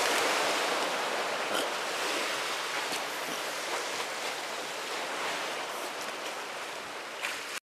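Sea surf washing against the rocks of a breakwater in rough water: a steady, even hiss of breaking waves.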